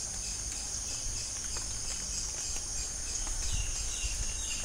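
Steady background noise: an even high-pitched hiss with a low rumble underneath; no mixer grinder is heard running.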